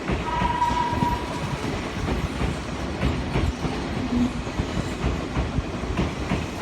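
Odakyu electric commuter train running into a station platform, its wheels clacking over rail joints over a steady low rumble. A brief high tone sounds about half a second in.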